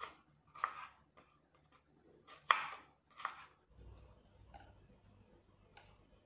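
Kitchen knife chopping a brown onion on a wooden cutting board: a few separate cuts in the first three and a half seconds, the one about two and a half seconds in the loudest. After that come faint small clicks as the cut onion pieces are pulled apart by hand.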